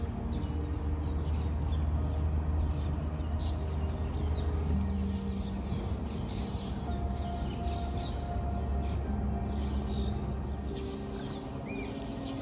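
Birds chirping in short repeated calls, over soft background music of long held chords that change every few seconds.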